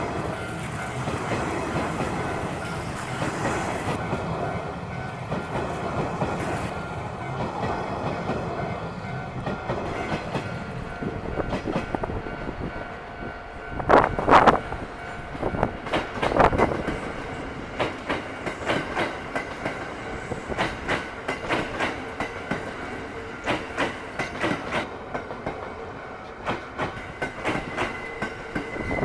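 Train running over a level crossing: a steady rumble, then from a little past halfway a regular clickety-clack of wheels over rail joints. Two loud brief sounds come about halfway through.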